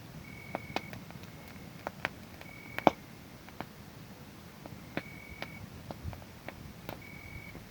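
Wood fire crackling with sharp, irregular pops, the loudest about three seconds in, while a cricket trills in short bursts of about half a second at one steady high pitch, several times.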